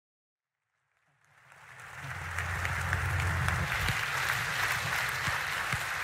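Audience applauding, fading in after about a second of silence and holding steady, with a low hum underneath during the first half.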